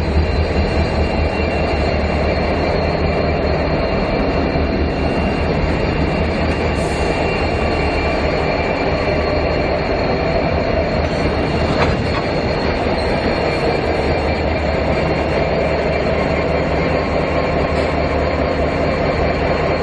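QR National LDP-class diesel-electric locomotives running past as light engines: a steady diesel engine drone with a thin, high whine held over it. A single click about twelve seconds in.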